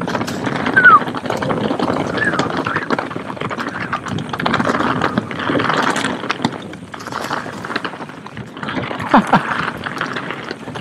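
Mountain bike riding over a rough, rocky trail: continuous clattering and rattling of tyres and bike over stones, with a few short falling squeals.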